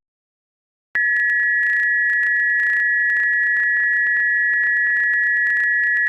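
Emergency Alert System attention signal: after about a second of silence, a loud, steady two-tone alert tone starts and holds, with rapid thin clicks running through it. It is the tone that announces an emergency alert broadcast, here the national test message.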